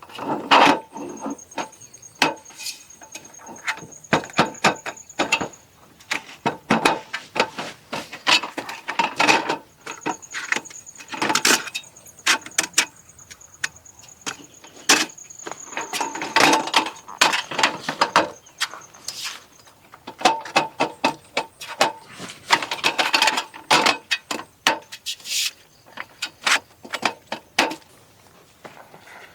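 Sticks or firewood being handled and broken: irregular sharp wooden knocks, cracks and clatter, in quick clusters.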